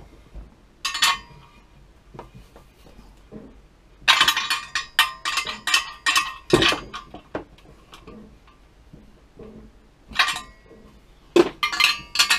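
Lengths of aluminium extrusion clinking and knocking together as they are handled and fitted, with a long steel bolt slid through them. The clinks come in clusters, the busiest rattle about four to seven seconds in, and more near the end.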